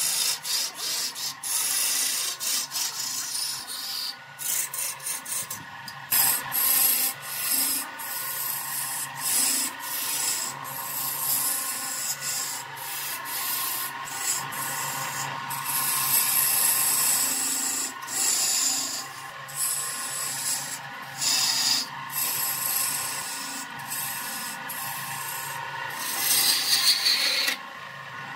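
Wood lathe spinning a log while a hand-held gouge cuts it: a loud scraping hiss of shavings tearing off, broken by many brief gaps where the tool lifts from the wood, over the electric lathe motor's steady hum.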